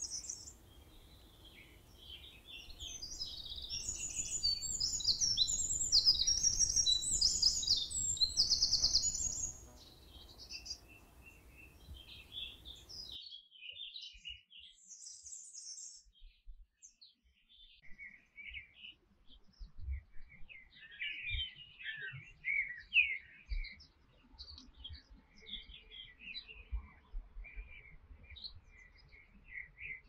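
Canary song: a loud, fast run of trills and rolls reaching high in pitch for several seconds, then softer scattered twittering chirps. The background hiss cuts out abruptly about halfway through.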